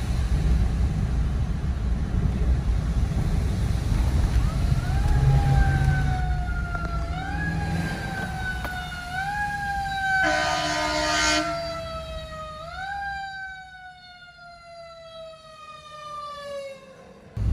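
An emergency vehicle siren wailing, each cycle rising sharply then falling slowly about every two seconds, with a short horn blast in the middle. A low wind rumble dies away in the second half.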